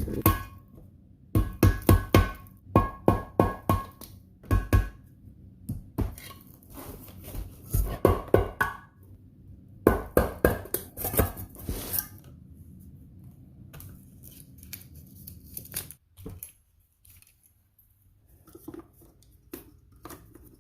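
Metal clinks and knocks in quick runs of sharp strikes, some with a short ringing tone, as tools work the back cover off a Hayward Super Pump motor; a single duller thunk comes near the end.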